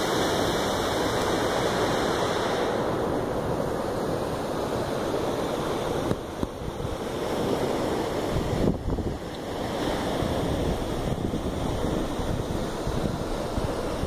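Steady rush of a large waterfall and its river pouring over rocks, dipping briefly twice, with wind noise on the microphone.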